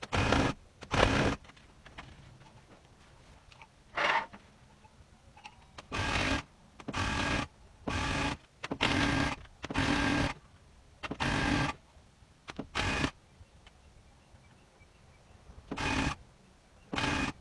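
Electric tufting gun running in short bursts of a steady buzz, about a dozen, each under a second, with brief stops between them and two longer pauses.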